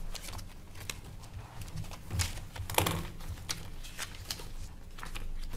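Paper rustling as budget pages are turned and handled, with a string of irregular light clicks and knocks; the loudest rustles come a little over two and nearly three seconds in.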